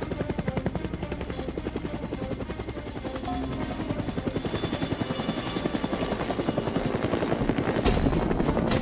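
Helicopter rotor chopping in a fast, even beat, with background music under it.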